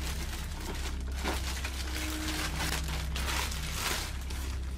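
Clear plastic bag crinkling and rustling as a large plastic model vehicle is handled inside it and pulled out, in irregular bursts over a steady low hum.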